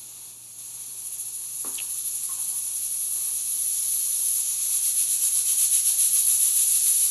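Stovetop pressure cooker venting steam from its weighted regulator on the lid: a high hiss that grows steadily louder and, in the second half, pulses rapidly several times a second, as the cooker comes up to pressure.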